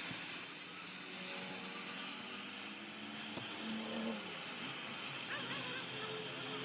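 A steady high-pitched hiss.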